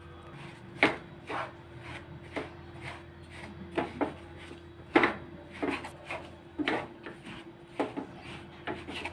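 Wooden spatula scraping and stirring a crumbly mix of roasted gram flour, ghee and powdered sugar in a nonstick pan, in irregular short strokes with the loudest about five seconds in, over a faint steady hum.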